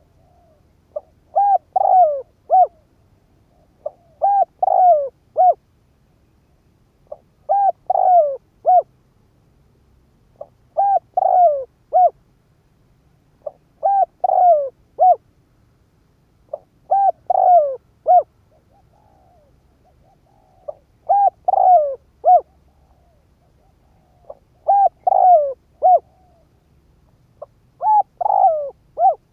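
Spotted dove cooing: the same short phrase of a few clipped hoots repeated about nine times, roughly every three seconds, the call of a decoy bird used to draw in wild doves.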